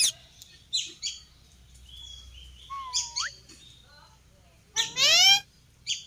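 Indian ringneck parakeets calling: a string of short, sharp, high chirps, a whistle that holds and then rises near the three-second mark, and a loud rising screech about five seconds in.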